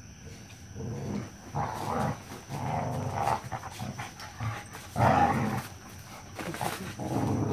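A Black Mouth Cur and an Australian Shepherd puppy growling in play as they wrestle, in irregular bursts; the loudest comes about five seconds in.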